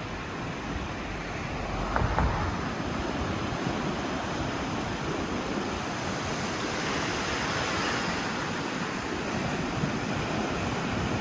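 Rough surf from a typhoon swell breaking and washing up on a sandy beach, with a surge of wash about seven seconds in. A gust of wind buffets the microphone about two seconds in.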